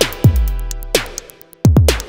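Electronic dance music with a drum machine: deep kick drums that drop in pitch, quick hi-hat ticks and a held synth chord.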